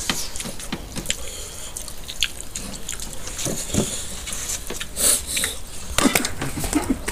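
Close-up wet eating sounds of several people eating rice and curry with their hands: chewing, lip smacks and fingers squishing food, a steady run of short clicks, with a couple of louder knocks about five and six seconds in.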